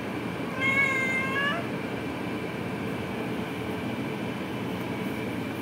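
A domestic cat meows once, a single call about a second long that rises slightly in pitch at its end, over steady background noise.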